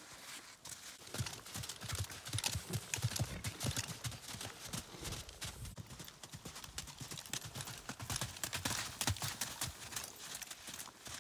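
Hoofbeats of a North Swedish draught horse on sand arena footing: a steady run of dull thuds, louder from about a second in.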